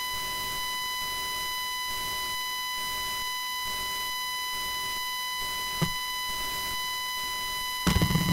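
A steady high-pitched tone with even overtones: the high-pitch feedback of a failed microphone. One knock comes about two-thirds of the way through, and a short run of knocks comes near the end.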